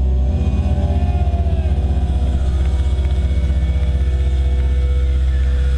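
A live metal band's amplified instruments holding a loud, low, distorted drone with a fast, even pulsing running through it.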